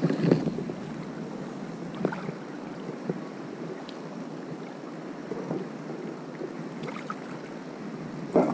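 Wind rushing on the microphone, with a few brief knocks, the loudest near the start and near the end.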